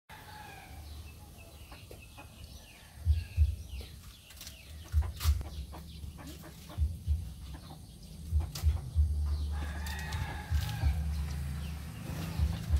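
Chickens clucking now and then, with repeated low thumps on the microphone that are louder than the birds.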